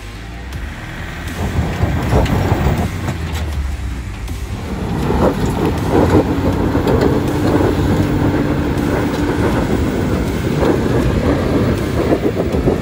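Mitsubishi Pajero's engine working hard as it climbs a steep, rutted dirt hill, with its tyres scrabbling in loose dirt and gravel; it gets louder about five seconds in.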